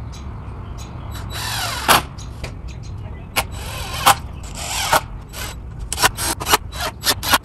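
Cordless DeWalt driver sinking screws into pressure-treated lumber to tack down the frame's corners. It gives two longer runs whose pitch rises as the motor spins up, then a quick series of short trigger pulls near the end.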